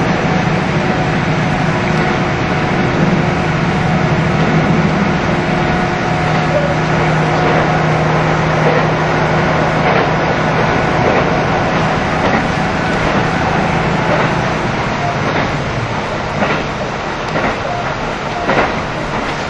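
KiHa 75 diesel railcar heard from inside the passenger cabin, running at speed: a steady diesel engine drone over wheel and rail rumble. About two-thirds in, the engine note fades, and the clicks of wheels crossing rail joints stand out near the end.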